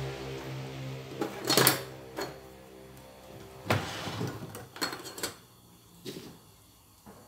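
Scattered knocks and clatters of kitchen things being handled, the loudest about a second and a half in, over a steady low hum that fades away about halfway through.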